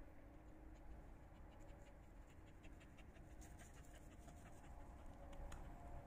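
Near silence with a faint run of small scratchy clicks and rustles through the middle.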